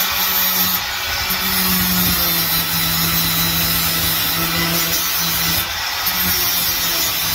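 Electric angle grinder grinding weld seams flat on a car's steel floor pan: a steady motor hum under a harsh grinding noise, easing briefly about a second in and again near six seconds as the disc comes off the metal.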